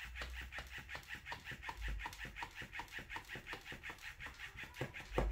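Nepfaivy USB-rechargeable plush clownfish cat toy running: its small electric motor flaps the tail in a rapid, even clicking rhythm, about eight strokes a second, with the motor plainly audible.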